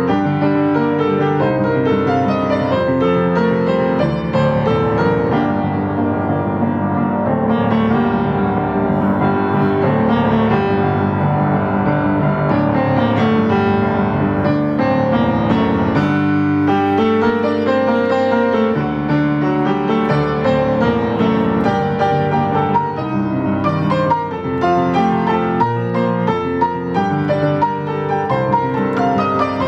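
Solo piano playing a Japanese baseball cheering song, with brisk chords under the melody in both hands. Around the middle it passes into a second cheering-song tune.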